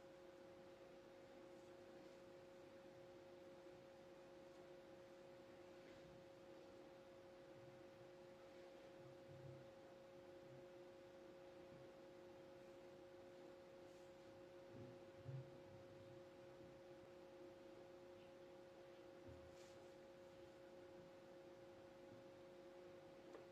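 Near silence: a faint, steady two-tone electrical hum, with a few soft low thumps about nine and fifteen seconds in.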